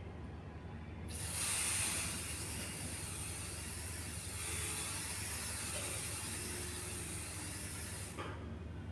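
Aerosol can of liquid dye penetrant spraying onto a test piece: a steady hiss that starts about a second in and lasts about seven seconds before stopping.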